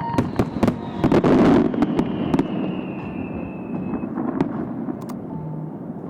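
Aerial fireworks bursting: a rapid cluster of bangs in the first two seconds, then a few single reports as the display thins out. A high tone glides slowly downward through the middle, over a lingering rumble.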